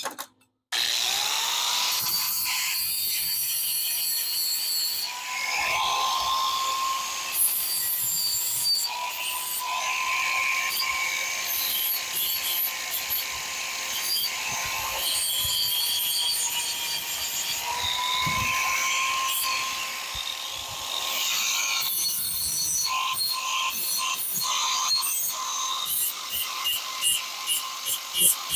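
Corded Ryobi angle grinder spinning up and running with a steady whine, its disc grinding on steel in stretches; the whine sags slightly when the disc bites. Over the last few seconds the disc makes a quick run of short contacts with the metal.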